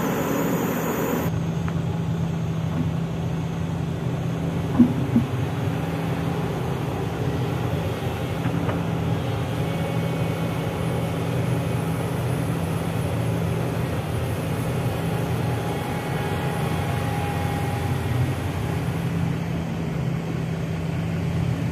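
Heavy diesel engines of a Sany excavator and a dump truck running steadily while the excavator loads soil into the truck, with two sharp knocks about five seconds in.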